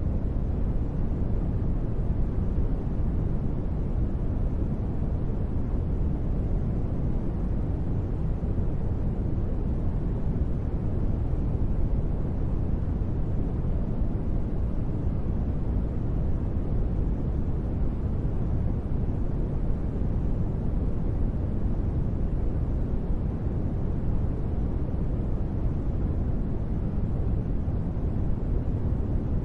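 Steady deep-space ambience noise bed: an even, unbroken hiss-like rush weighted heavily toward the bass, so it sounds like a deep rumble with little treble. It has no tones or events.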